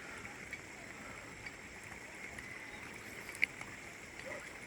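Faint, steady outdoor background hiss with a thin high-pitched hum running through it, and one short click about three and a half seconds in.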